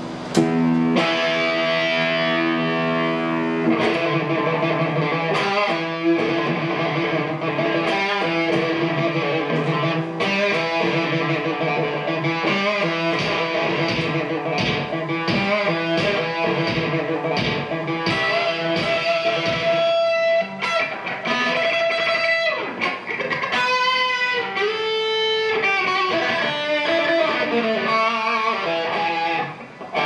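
Electric guitar improvisation played through effects and a looper, with sustained layered chords under picked melody notes. Some notes glide in pitch about two-thirds of the way through, and the sound dips out briefly just before the end.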